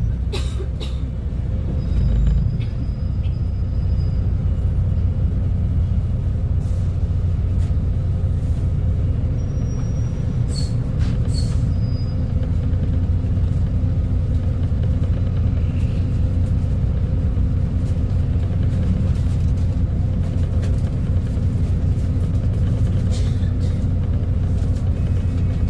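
Diesel engine of a Volvo B250RLE city bus running at a steady low drone, with no revving, and a few brief sharp clicks over it.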